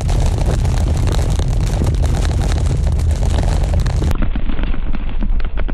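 Car driving through heavy rain on a wet road: a steady, loud rumble of road and rain noise, with a few sharp taps near the end.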